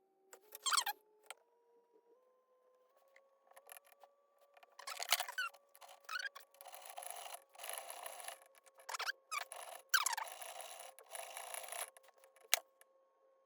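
Small metal watch parts scraped and rubbed during work at a watchmaker's lathe, with several short squeaks and stretches of scraping. A faint steady motor hum steps up in pitch in the first few seconds, then holds.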